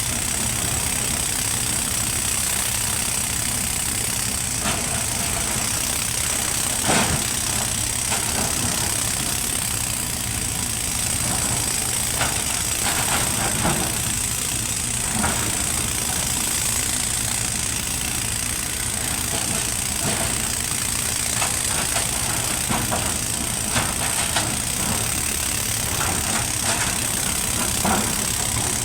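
Sany 140 excavator's diesel engine running steadily, with scattered short knocks, the sharpest about seven seconds in.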